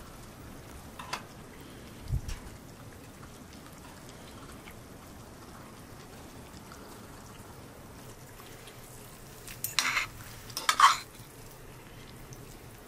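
Metal utensils clinking and scraping against pots and dishes: a few light knocks early, then two louder clattering bursts about ten seconds in.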